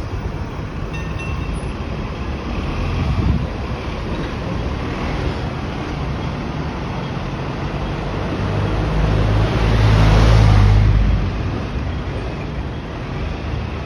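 Street traffic by a Hong Kong tram stop with a steady low rumble. A heavy vehicle passes close, swelling to its loudest about ten seconds in and then fading.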